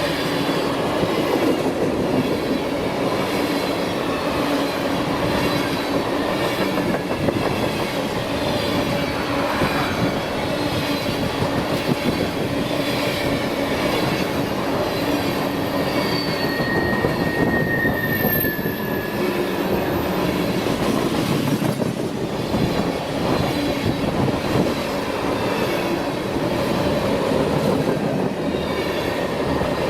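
BNSF freight train cars rolling past steadily, wheels clicking over the rail joints, with brief high-pitched wheel squeals about halfway through and again near the end.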